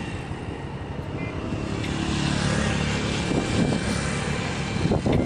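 A small motorcycle engine passing close by, growing louder through the second half.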